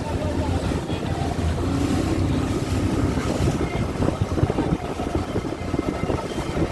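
Boat under way at sea: its engine running, with wind buffeting the microphone and the wash of water.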